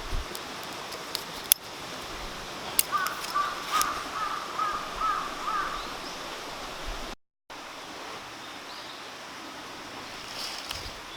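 Steady rushing of a mountain stream, with a bird giving a quick run of about eight short calls a few seconds in and a few light clicks.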